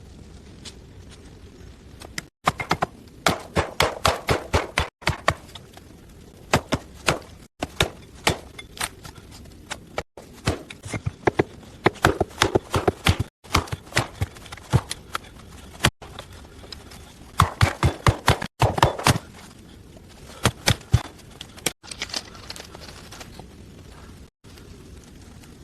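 Bursts of rapid, sharp knocks and clicks, several a second, broken up by short gaps between edited shots.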